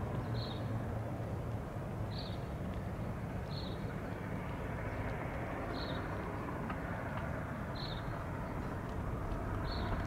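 ATR 72-600's twin Pratt & Whitney PW127 turboprops at climb power after takeoff, heard as a steady, distant drone. A low propeller hum is strongest at first and eases a little as the aircraft climbs away.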